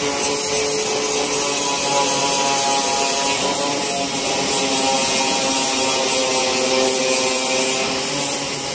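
Angle grinder running at a steady high whine, its disc grinding along a welded seam in sheet steel.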